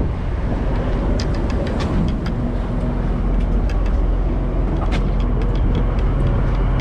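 Fishing boat's engine droning steadily under the rush of water along the hull, with scattered light clicks throughout.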